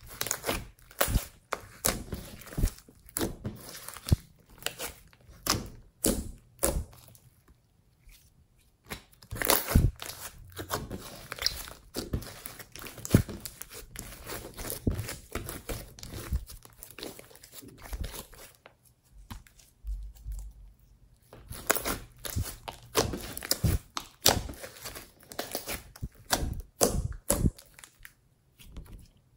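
Hands squeezing, folding and stretching a sticky, glossy slime: a run of irregular sticky clicks, crackles and pops, with two short pauses about a third and two thirds of the way through.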